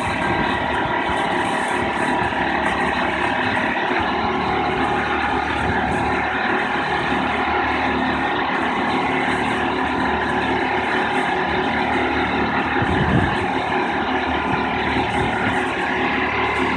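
Boat travel lift's engine running steadily, with a short low knock about thirteen seconds in.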